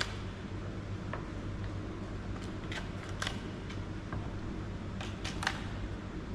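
Scattered small plastic clicks and taps as batteries are fitted into the RC excavator transmitter's opened battery compartment, over a steady low hum.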